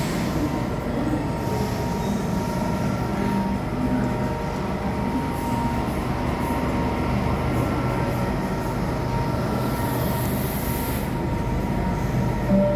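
Electric suburban train running along the station platform: a steady rumble with a faint whine, and a burst of hiss about ten seconds in.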